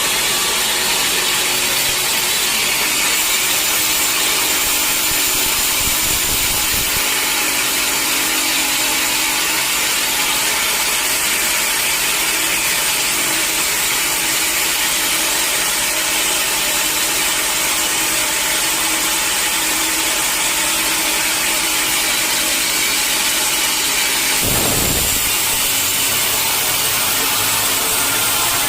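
Sawmill saw cutting through a mahogany log: a steady, loud, hissing saw noise. A brief low thud comes near the end.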